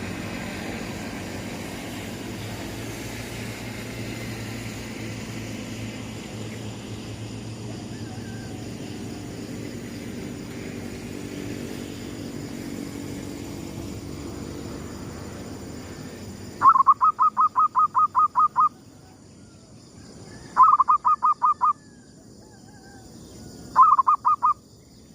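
Zebra dove (perkutut) cooing: a quick run of rapid staccato notes about five a second, then two shorter runs, starting about two-thirds of the way in. Before it there is a steady hiss with a low rumble.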